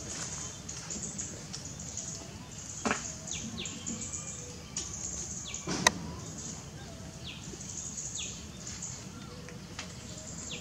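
Outdoor ambience of birds chirping, with short falling calls every second or so over a steady high hiss. A sharp click comes about three seconds in, and a louder one comes near the middle.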